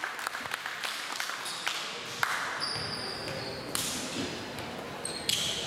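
Volleyball bouncing on a hardwood gym floor, a few sharp thuds that echo in the large hall, with short high-pitched sneaker squeaks and low voices underneath.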